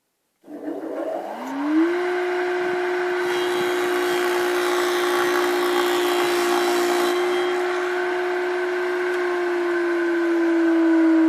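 Bee hive box handle machine's 1 hp single-phase electric motor switching on and spinning up, its whine rising for about a second and a half and then running steady. A rougher hiss joins for a few seconds in the middle, and the pitch sags a little near the end.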